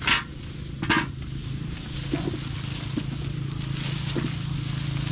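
Guavas dropped into an aluminium bucket: two sharp clunks in the first second, followed by a few fainter knocks, over a steady low drone.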